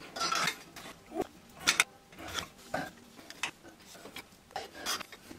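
Irregular metal clinks, knocks and short scrapes of wrenches and pipe tools working on threaded pipe fittings.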